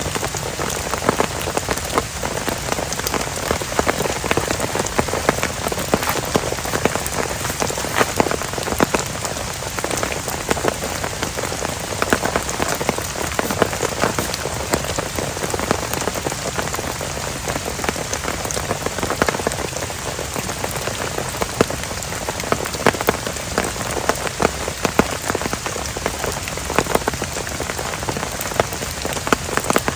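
Heavy rain falling steadily, with dense sharp ticks of drops striking close by.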